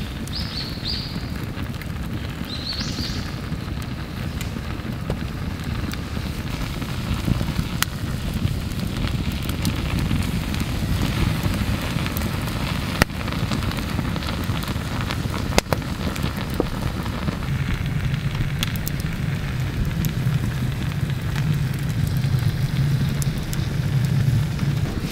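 Wood campfire crackling, with scattered sharp pops over a steady hiss, while shellfish grill on a wire grate over the flames.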